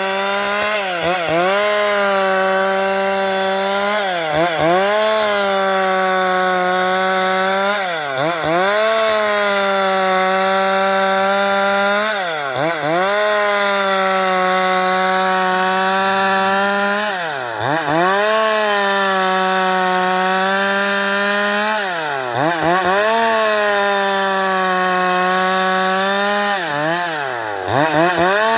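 Stihl MS 382 two-stroke chainsaw running at full throttle while ripping lengthwise through a pequi-wood post; the engine note sags and recovers about every four to five seconds.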